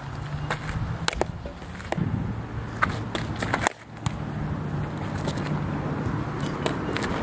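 Softball bat hitting balls: short sharp knocks, several times, over a steady low background hum.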